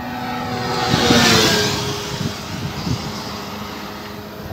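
A motorcycle passing at highway speed. Its engine note is loudest about a second in and drops in pitch as it goes by, then fades away.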